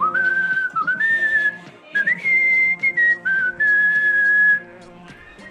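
A whistled melody, one clear pitch moving between held notes with short slides, over a background music bed; the whistling stops about four and a half seconds in while the music carries on.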